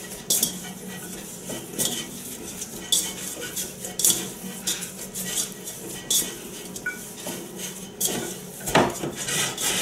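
Hands kneading cookie dough in a stainless steel mixing bowl: soft pressing and rubbing, with irregular knocks and clinks of the metal bowl as it is pushed and turned, a loud knock near the end.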